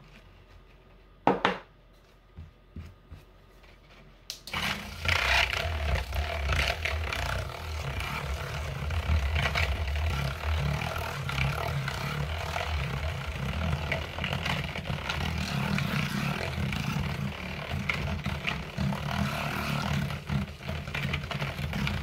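A handheld stick blender switches on about four seconds in and runs steadily in a plastic bowl of melted lotion-bar oils and butters, blending them. Before it starts there is a sharp click and a few light knocks.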